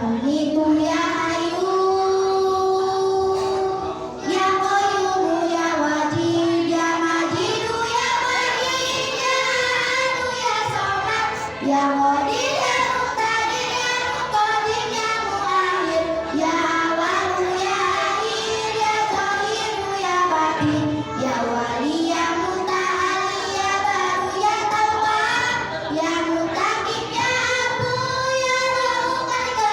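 Children singing a melody with musical accompaniment, held notes gliding up and down without a break.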